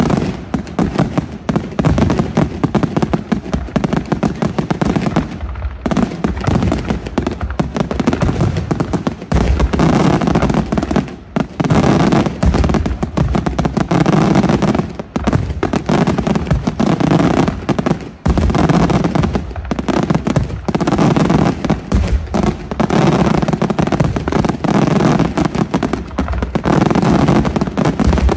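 Aerial firework shells bursting in a rapid, near-continuous barrage, the reports and crackle running together with only a few brief lulls.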